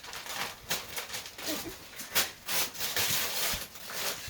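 Gift wrapping or packaging being handled and torn open: irregular crackling and rustling, with a young child's brief vocal sounds about a second and a half in.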